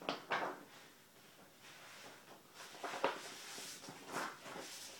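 Large folded paper map sheets rustling and crackling as they are handled and moved, in a series of short bursts.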